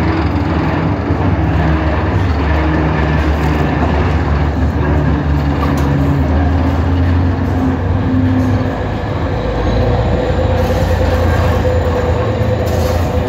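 Railway turntable turning with a diesel shunting locomotive and a battery shunting tractor on its bridge: a loud, steady low drone of machinery, with a higher steady whine joining about nine seconds in.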